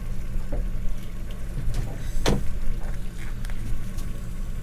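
Steady low rumble aboard a small fishing boat, with one sharp knock about two seconds in and a few lighter clicks of tackle or gear being handled.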